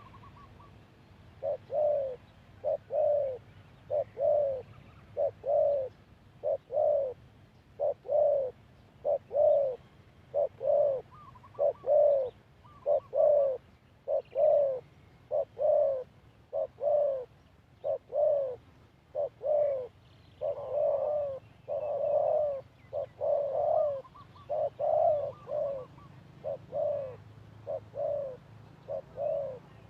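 Spotted dove (cu gáy) cooing: short, low notes repeated steadily over and over in a regular rhythm.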